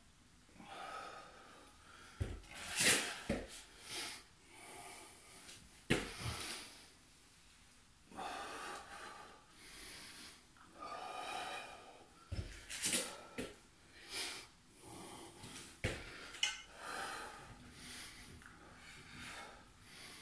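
A man breathing hard from exertion: repeated forceful puffs and gasps a few seconds apart. A few sharp knocks and thuds fall among the breaths.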